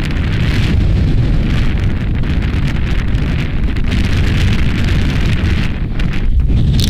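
Wind blowing hard across the camera microphone: a steady low rumble, with a short sharp hiss near the end.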